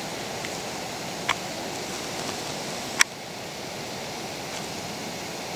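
Steady rushing outdoor background noise, with two sharp clicks, a small one just over a second in and a louder one about three seconds in.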